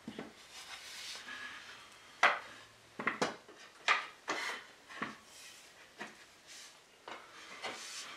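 Wooden chair parts being handled, with a string of irregular sharp knocks and clinks as pieces are set down and knocked together.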